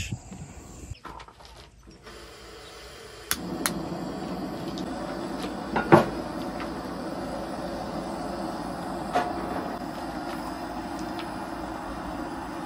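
A cast-iron Dutch oven is handled on a propane camp stove: a few light knocks and one louder metal clank about six seconds in as the pot is set on the grate. A steady rushing noise runs underneath from a few seconds in.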